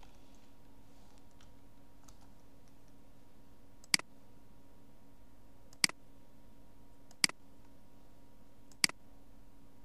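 Four sharp computer mouse clicks, a second or two apart, over a steady faint hum.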